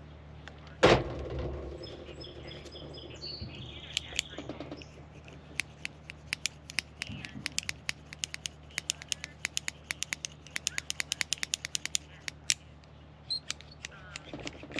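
A metal carabiner gate being worked open and shut, a fast run of sharp clicks, about four or five a second, as the gate snaps closed again and again, after one loud clunk about a second in. The gate is being checked for a squeak after cleaning, and a slight squeak remains.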